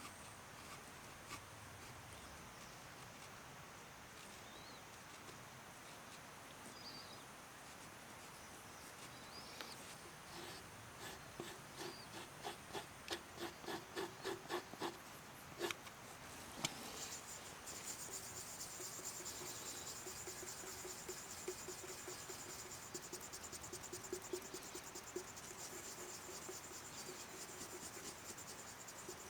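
Hand scraping or rubbing strokes, about two a second, starting about a third of the way in, then a faster continuous rasping scrape through the rest.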